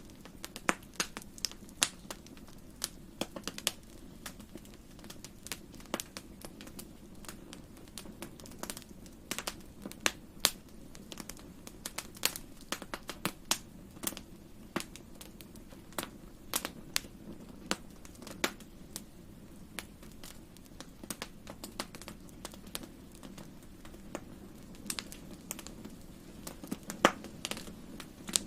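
Wood fire crackling in a fireplace: irregular sharp pops and snaps, several a second, over a soft steady low rumble of the burning.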